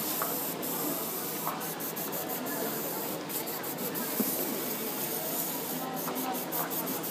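Airbrush spraying paint: a steady high hiss of air that drops out in short gaps several times, with quick runs of them about two, three and six seconds in.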